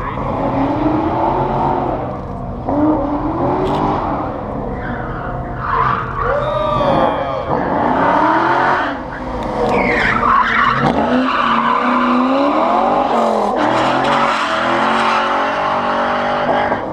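Chevrolet S-10 pickup with a Black Widow exhaust running an autocross course: the engine revs rise and fall again and again as it accelerates and brakes between cones, with tire squeal in the turns.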